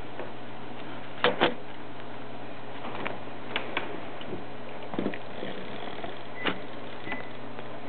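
Plastic Lego toy car knocking against a tissue box and clicking on a tabletop as it is handled: two sharp knocks close together about a second in, then a few lighter taps and clicks, over a steady faint hum.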